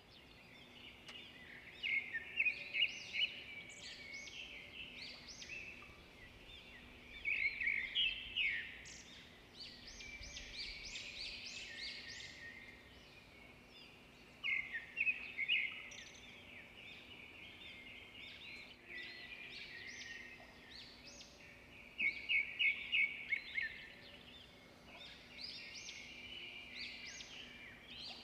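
Small birds chirping and twittering, with clusters of quick trills several seconds apart. A faint steady hum runs underneath.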